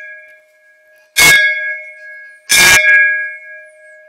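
Hanging brass temple bell struck twice, about a second and a half apart, each strike ringing on and slowly fading.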